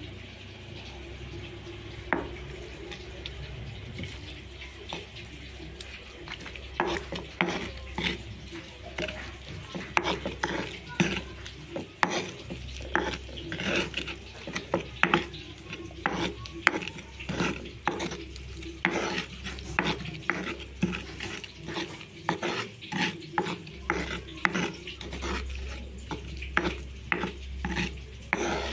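Stone pestle crushing and grinding chillies, shallots, garlic and boiled tomato against a stone mortar (ulekan and cobek), in repeated strokes about two a second that start about six seconds in.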